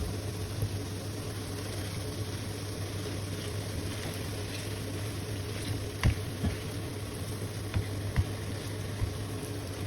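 A steady low hum under an even hiss, with a few light clicks and knocks from about six seconds in.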